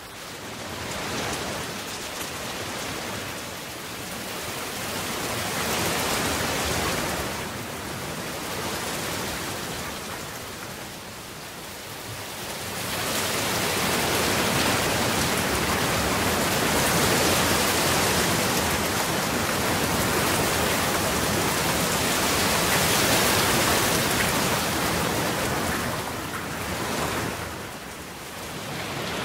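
Steady hiss of rain falling, swelling and easing in slow waves, heaviest through the middle stretch.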